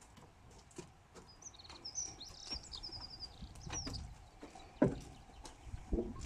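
A small bird singing a short phrase of chirps and a quick trill, over scattered light taps and knocks. A sharp thump a little before the end is the loudest sound.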